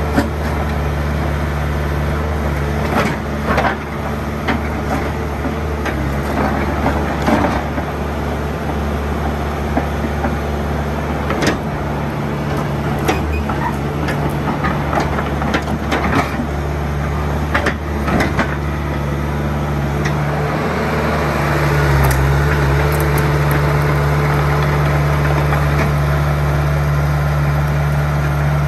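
Komatsu PC75UU mini excavator's diesel engine running under load as the machine tracks and slews, with a scatter of sharp metallic clanks from the undercarriage. The engine note steps up and gets louder about 22 seconds in, then stays there.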